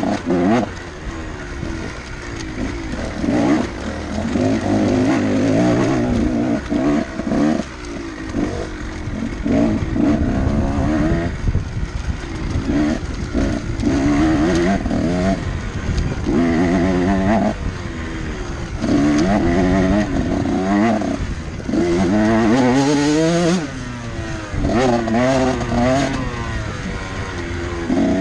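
Dirt bike engine revving in repeated bursts, the pitch climbing through each burst and falling away between them as the throttle is opened and closed.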